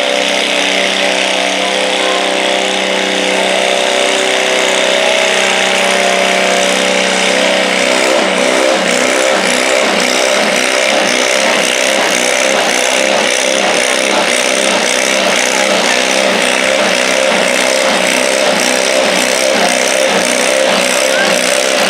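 Small garden tractor engine working hard under load, pulling a stoneboat sled. A steady, even engine note for the first several seconds changes about eight seconds in to a quick rhythmic pulsing that keeps on.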